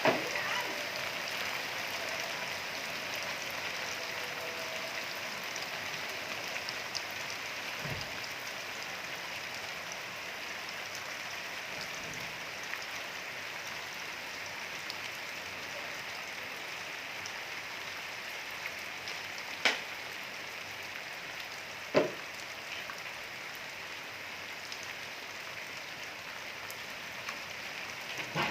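Steady rain falling and pattering on surfaces, an even hiss throughout. Two sharp single knocks stand out a couple of seconds apart in the later part.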